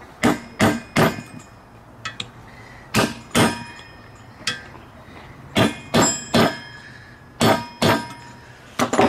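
Hammer blows on a steel bearing driver, seating a wheel bearing into a trailing-arm hub. There are about a dozen strikes in quick groups of two or three, each with a short metallic ring.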